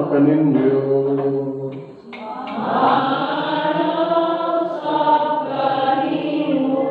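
Voices singing a slow, chant-like church song, with a short break about two seconds in followed by long held notes.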